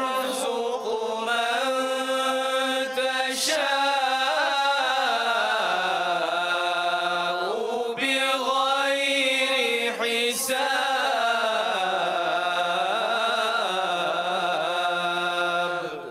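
Male Quran recitation in melodic tajweed style: long drawn-out, ornamented phrases sung on a sustained pitch, with a short break for breath about eight seconds in, ending just before the close.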